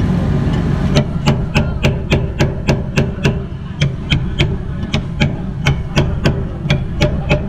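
Metal spatula edge repeatedly striking the steel cold plate of a rolled-ice-cream pan, chopping peanuts in sharp clacks about three to four times a second, starting about a second in. A steady low hum lies underneath.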